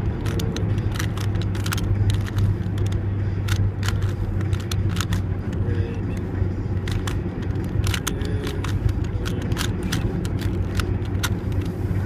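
Plastic 3x3 Rubik's cube being twisted fast by hand: quick irregular clicks and clacks as the layers turn and snap into place, over a steady low rumble.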